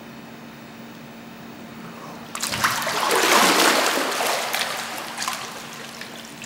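Water splashing as a swimmer swims up through a pool, starting a couple of seconds in, swelling to a loud peak and then fading away.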